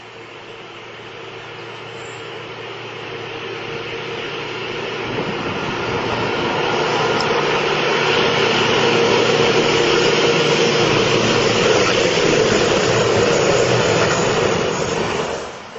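Main battle tank approaching at speed, its engine and tracks growing steadily louder over the first half, then braking hard and falling quiet suddenly near the end.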